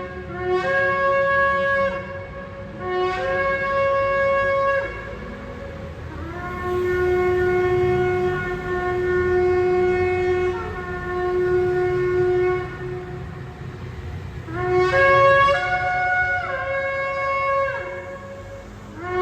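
Shofar blown in a series of blasts, each jumping between a lower and a higher note. Two shorter blasts come first, then one long blast of about six seconds held mostly on the low note, then more short blasts near the end.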